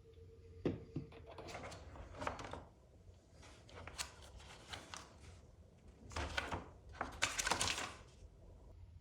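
Handling noises: a sharp knock, then several bursts of rustling and clicking.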